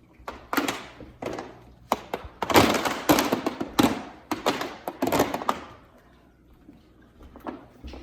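Tongue-and-groove floorboards crackling and crunching underfoot as someone walks across them, a dense run of sharp cracks and knocks in the first five or so seconds, then a few fainter clicks. The noise is typical of boards shifting over voids in a subfloor that the host suspects was not leveled properly, so the tongue-and-groove joints rub and flex.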